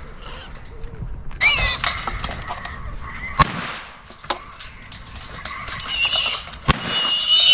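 Trapped feral hogs squealing high and shrill in a steel cage trap, in a first bout early on and louder again near the end. Two sharp cracks cut in, about halfway through and again near the end.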